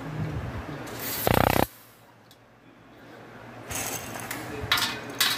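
A corded electric screwdriver runs briefly, about a second in, driving a screw home. Later, plastic rustles and small plastic parts click.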